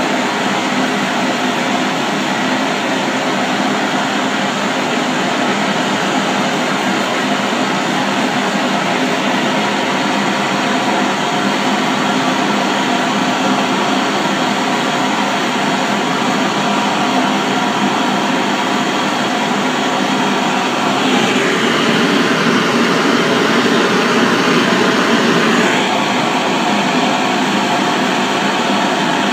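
Gas blowtorch flame hissing steadily as it heats the metal for a copper nitrate patina. About three quarters of the way through, the hiss gets louder and brighter for about five seconds, then settles back.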